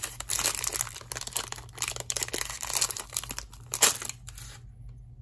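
Clear plastic watch sleeve crinkling and crackling as a wristwatch is pulled out of it, stopping about four and a half seconds in.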